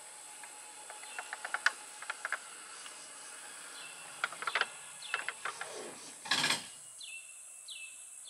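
Faint outdoor ambience with birds chirping: scattered light clicks and tweets, a brief louder rustling burst about six seconds in, and two short falling chirps near the end.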